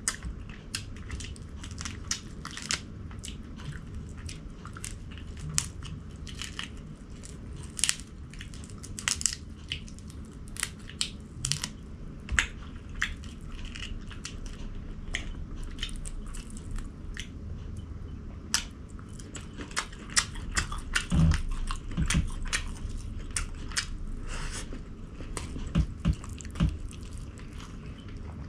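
A person eating close to the microphone: crunching, biting and chewing, with many short sharp crackles and clicks at an irregular pace.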